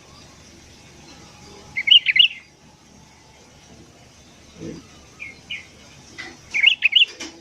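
Sooty-headed bulbuls calling: a quick burst of bubbly chirps about two seconds in, two short single notes a little past the middle, and another chirping burst near the end.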